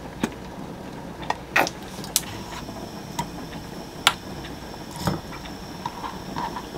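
Light knocks and clicks of cooking prep at a frying pan: a bottle of oil, then minced garlic and chopped tomato going into the pan. About six separate knocks, the loudest about four seconds in, with a faint steady high tone from about two seconds in.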